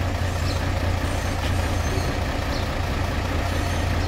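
Truck engine idling, a steady low rumble.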